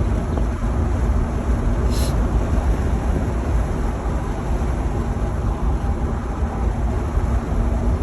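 Steady road and engine noise heard from inside the cabin of a moving car, a deep rumble with a faint steady hum. A short click sounds about two seconds in.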